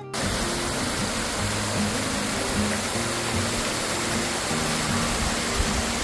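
Steady rush of water from a 22–23 m high artificial waterfall pouring down a rock face. It comes in suddenly at the start, with soft background music beneath it.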